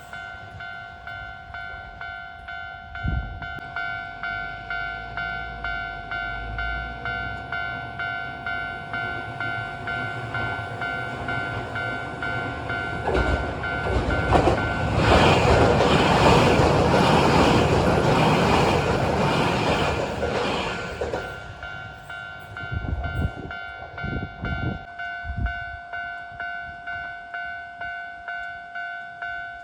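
Japanese level-crossing warning bell ringing in a steady repeating electronic ding, about one and a half strikes a second. About halfway through, a Keio 1000 series electric train runs through the crossing for some eight seconds, its wheels clacking over the rail joints. The bell keeps ringing after the train has passed.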